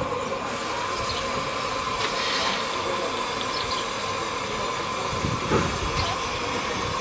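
Miniature steam locomotive standing at the platform with a steady hiss of steam and a steady tone. A single louder knock comes about five and a half seconds in.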